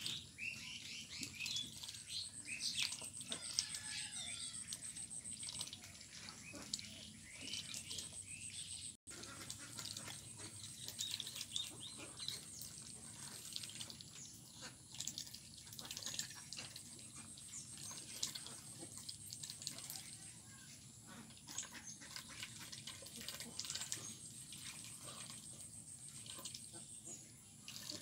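A duck dabbling its bill in a basin of water and feed: quick wet splashing, slurping and clicking. Small birds chirp in the background during the first few seconds.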